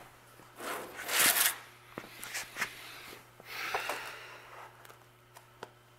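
Rustling and scraping handling noises from body-filler work, in two short spells with a few light clicks between them.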